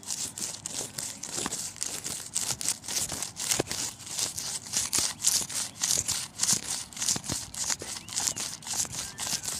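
Miniature two-man saw with a serrated metal blade rasping back and forth across a thin green sapling stem, in quick even strokes, a few a second.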